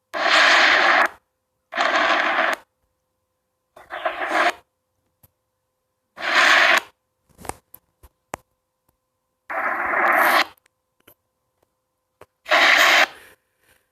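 Six separate bursts of harsh, hiss-like noise, each about a second long, with sharp starts and stops and silence between them, plus a few faint clicks in the middle.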